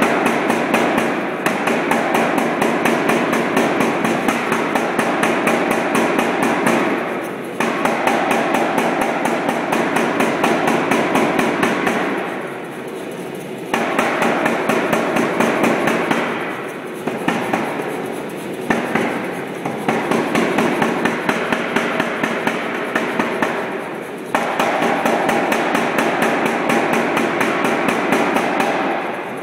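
Anyang 55 lb self-contained air power hammer striking a hot 1.5-inch square steel bar between flat dies in a rapid, steady run of blows, drawing the bar down to a taper. The blows let up briefly several times, about 7, 12, 17, 19 and 24 seconds in, while the hammer's machinery keeps running.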